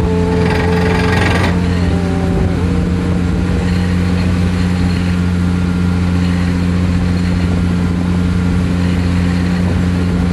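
Excavator-mounted vibratory pile hammer shaking a long steel beam pile down into sandy ground: a loud, steady low drone. A higher whine steps down and fades in the first two to three seconds, with a brief hiss about a second in.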